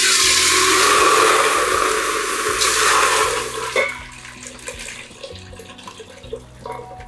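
Boiled vegetables and their cooking water poured from an aluminium pressure cooker into a large steel pot. A loud gushing splash starts suddenly and lasts about three and a half seconds, then dwindles to a softer trickle and pour.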